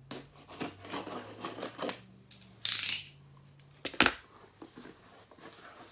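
A mailed package being opened by hand: small rustles and clicks, a short loud tear about two and a half seconds in, then a single sharp knock about a second later, over a faint low hum.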